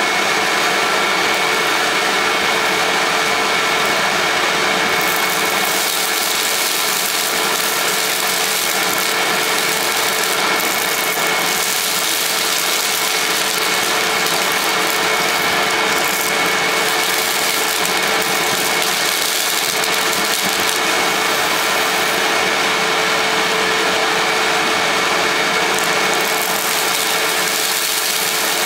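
Hoover WindTunnel self-propelled bagless upright vacuum (model U6630) running steadily with a constant whine, drawing through its hose while the hand tool sucks debris off carpet.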